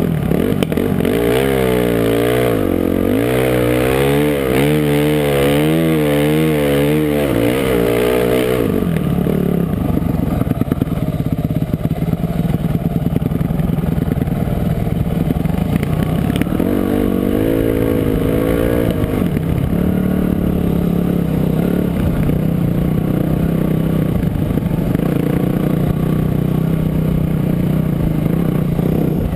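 Dirt bike engine on a forest trail. For the first several seconds its pitch rises and falls quickly, over and over, as the throttle is worked. It then runs more steadily, with another rise and fall about two-thirds of the way through.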